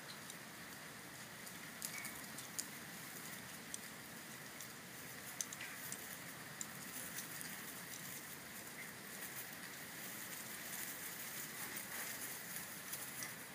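Boxer puppies scuffling and wrestling in grass: faint rustling with scattered small clicks and taps.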